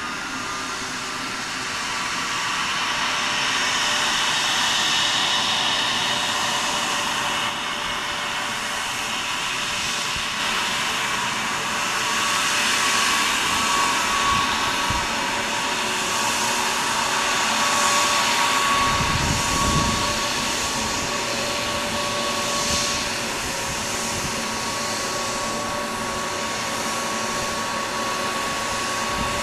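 Airbus A321neo's turbofan engines running at taxi power: a steady jet whine over a rushing hiss. A brief low rumble comes about two-thirds of the way through.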